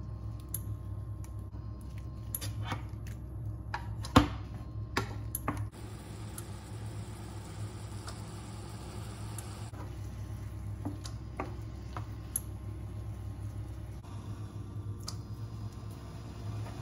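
Shimeji mushrooms frying softly in a nonstick pan, with a wooden spatula tapping and scraping against the pan. One sharper knock comes about four seconds in. A steady low hum runs underneath.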